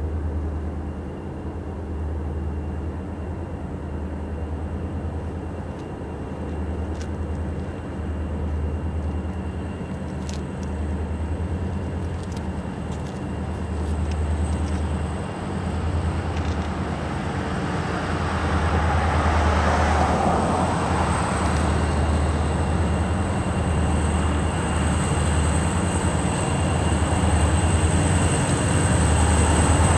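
Approaching diesel freight locomotives: a low, pulsing engine throb that grows steadily louder, with a thin high whine above it.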